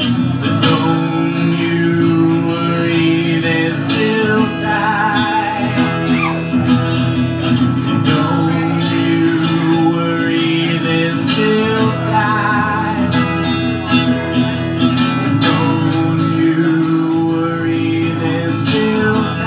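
Live acoustic guitar strummed as accompaniment, with a singing voice held over it in long wavering notes.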